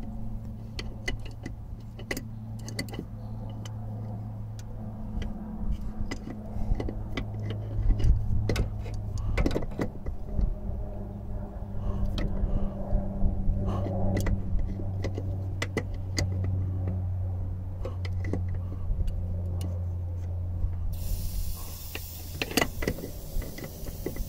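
Pickup truck engine idling with a steady low hum, over scattered clicks and taps as the AC pressure switch is turned by hand on its refrigerant-line fitting. Near the end a steady hiss comes in.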